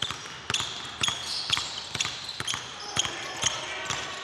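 Two basketballs pounded hard on a hardwood gym floor in a pound dribble, a sharp bounce about every half second, with short sneaker squeaks as the players step.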